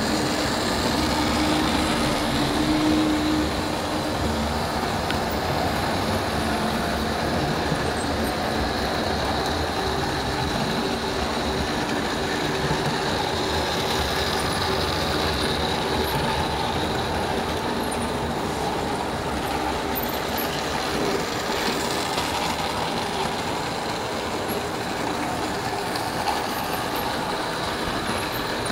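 Model train running on layout track: a steady rolling noise of the wheels and the locomotives' motors.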